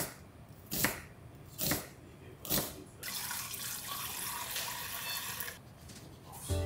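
Kitchen knife slicing through a red onion onto a plastic cutting board, four cuts a little under a second apart. Then a kitchen tap runs into a bowl in the sink for about two and a half seconds as the onion slices are rinsed.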